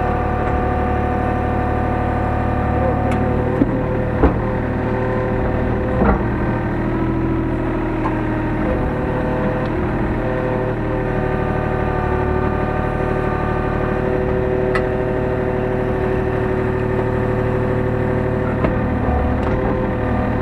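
Hyundai R35Z-9A mini excavator's diesel engine and hydraulics running steadily under work, heard from inside the cab, with a few sharp knocks about four and six seconds in.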